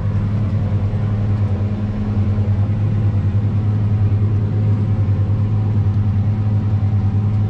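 Tractor engine running steadily under load as heard inside the cab, driving a front and rear mower set while mowing grass: a steady low drone with a slight even pulse.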